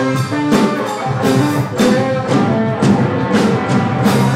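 Live band of electric guitar, electric bass and drum kit playing the closing bars of a song, with repeated cymbal crashes and drum hits over the guitar and bass.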